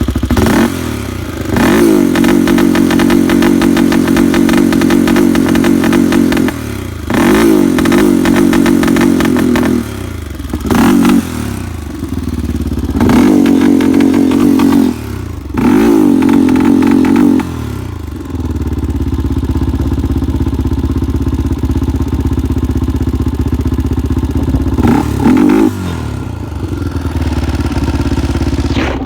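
Honda TRX400EX ATV's single-cylinder four-stroke engine revved repeatedly in bursts of a few seconds, then idling about two-thirds of the way in, with one more short rev near the end. The owner says it sounds bad and was run down by its last owner, before a rebuild.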